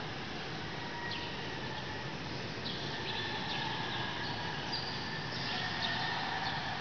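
Steady background hiss of a large, empty hall, with faint, thin high-pitched calls that come and go over it.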